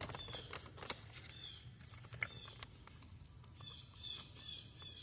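Faint small birds chirping in the background, short repeated calls several times, with a few light clicks and rustles from a battery cable and hand tools being handled in the first second.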